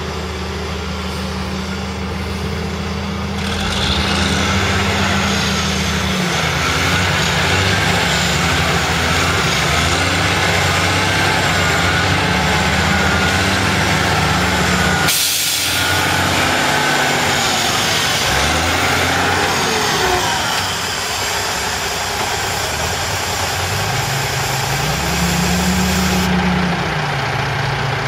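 Diesel engine of a log-laden logging truck running hard as the truck struggles stuck in deep mud. The engine gets louder a few seconds in, and its pitch rises and falls again near the end.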